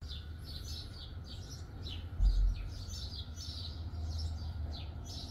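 Small birds chirping over and over in short, high chirps, over a steady low rumble. A brief low thump about two seconds in.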